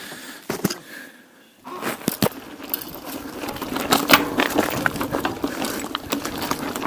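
Mountain bike rattling and clattering over rough ground, a dense run of clicks and knocks, with a short quieter spell about a second in.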